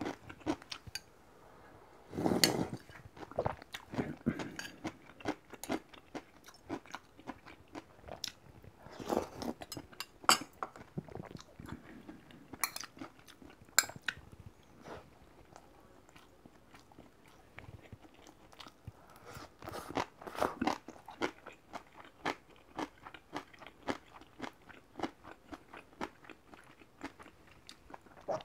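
A person eating a Korean home-cooked meal of rice, soup and kimchi side dishes: steady chewing and crunching with short, sharp clicks of metal chopsticks and spoon against the bowls, and a few louder bursts of eating noise now and then.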